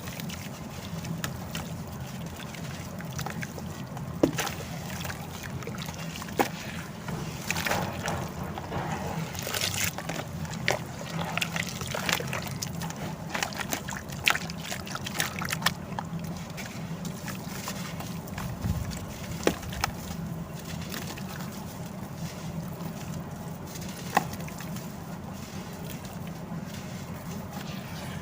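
Dried sand-cement chunks crumbling and being dipped in water: crackling crunches and sloshing, with a few sharp cracks over a steady low hum.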